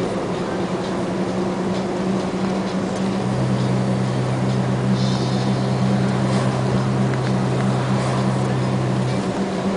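Engine and tyre noise of a moving vehicle heard from inside its cab: a steady low drone, with a second, deeper hum joining about three seconds in and dropping out near the end.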